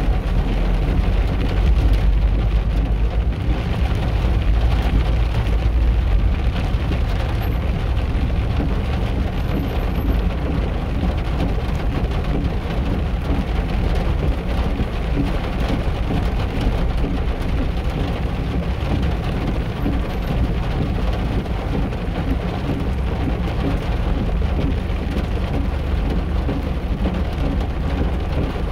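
Steady rain with a continuous low rumble of vehicle traffic on wet streets, heaviest in the first several seconds.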